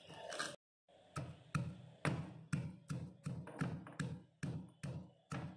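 Unpeeled garlic cloves tipped from a steel bowl into a stone mortar, then a stone pestle pounding them: a steady run of knocks, about two to three a second.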